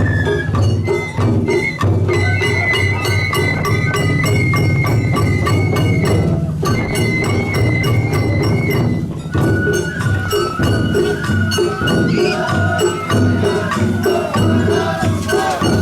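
Japanese festival music: a high flute holding and stepping between notes over a steady beat of drums and clanging metal percussion.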